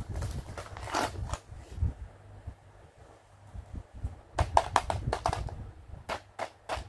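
Clear plastic toy packaging crinkling and crackling as it is picked up and handled. A cluster of crackles comes at the start, then a quieter pause, then a quick run of sharp crackles in the last few seconds.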